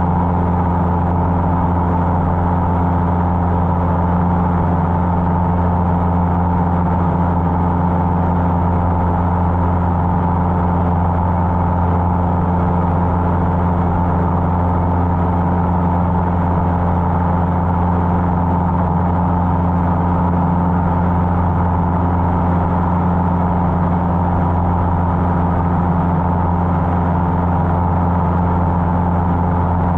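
Cessna 150's Continental O-200 four-cylinder engine and propeller droning steadily, with a deep hum and no change in pitch or level.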